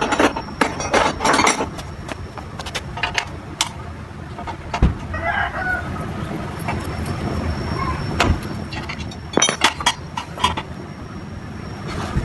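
Scattered metallic clinks and knocks of hand tools on a motorcycle, with a chicken calling in a wavering voice about five seconds in and briefly again later.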